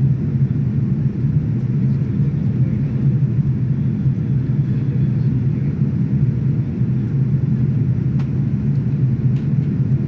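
Jet airliner cabin noise in flight: a steady low rumble of the engines and air rushing past the fuselage, heard from inside the cabin.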